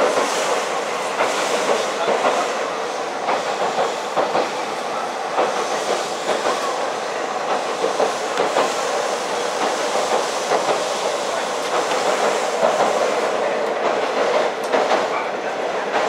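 Running noise heard inside a KiHa 40 diesel railcar: a steady rush of wheels on rail, with faint clicks over the rail joints.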